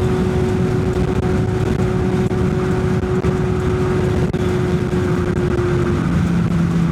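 Kawasaki Z900's inline-four engine running at a steady highway cruise, under heavy wind rushing over the microphone. The engine note shifts slightly lower about six seconds in.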